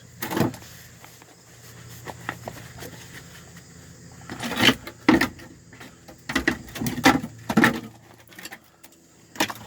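A few short light knocks and clicks, spaced irregularly, over a steady low hum.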